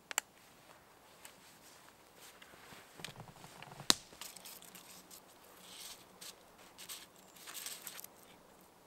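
Quiet handling sounds: a sharp click from a hard plastic knife sheath at the start, then scattered rustling and crunching with one sharp snap about four seconds in, and nylon jacket rustling near the end.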